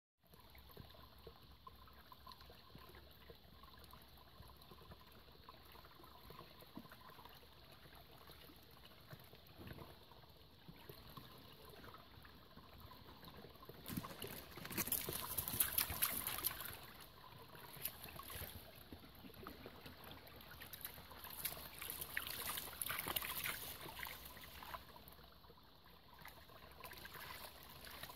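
A small forest stream trickling over stones, with two louder, hissier spells about halfway through and again a few seconds later.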